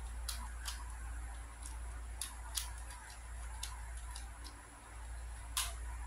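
Ju Xing keychain-sized plastic 3x3 cube turned by hand during a solve: irregular sharp clicks of its layers snapping round, about eight, the loudest near the end.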